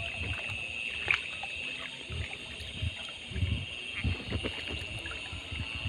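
Water sloshing and splashing in irregular low thuds as someone wades through shallow water, over a steady high-pitched drone.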